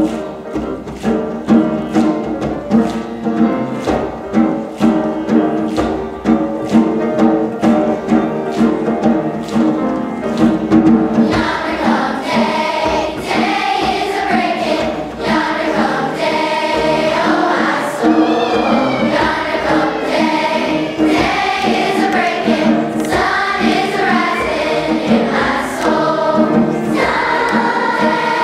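Large children's choir singing with piano accompaniment. The first seconds are a rhythmic piano introduction of evenly repeated chords, and the massed voices come in about eleven seconds in.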